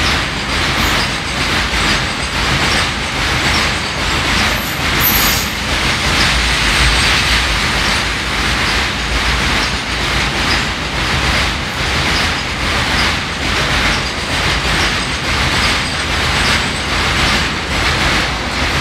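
Container freight train's wagons rolling past close by: a loud, steady rumble with a regular clickety-clack as wheel sets pass over the rail joints, and a brief high-pitched squeal about five seconds in.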